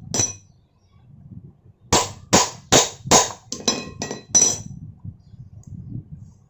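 Light hammer taps on the ceiling fan's metal rotor and housing, each with a short metallic ring: one tap, then a quick run of about eight taps a couple of seconds later. The tapping drives the rotor down onto the housing to close the gap during reassembly.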